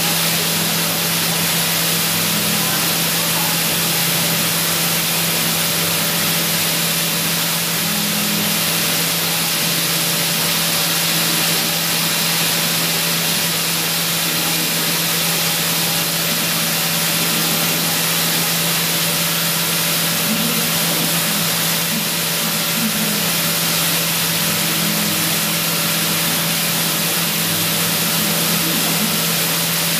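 Milling machine spindle turning a miniature carbide ball-nose end mill at 20,000 rpm while it cuts 50 HRC hardened medium-carbon steel at a slow feed: a steady machining whir with a strong hiss and a low hum, unchanging throughout.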